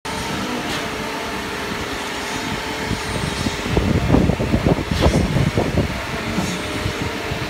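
Concrete pump truck and ready-mix truck running together during a pour, a steady diesel and hydraulic drone. It grows louder and rougher about halfway through, with a single knock a second or so later.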